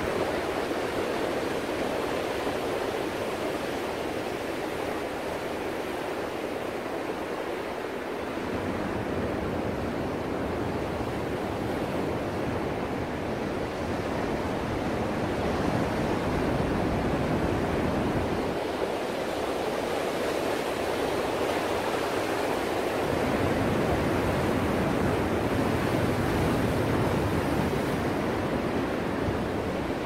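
Ocean surf: a continuous rushing wash of breaking waves that deepens and swells twice, about eight seconds in and again past the twenty-second mark.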